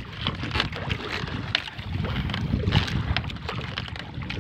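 Wind and water around an outrigger fishing boat, with scattered irregular knocks and rustles as a fishing net is hauled aboard by hand.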